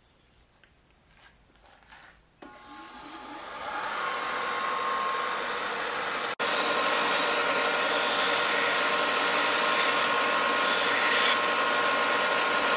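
A bench-top belt-and-disc sander starts about two seconds in and builds to a steady whine. A wooden fish-decoy blank is then held against the running belt, adding a loud, steady sanding hiss over the motor.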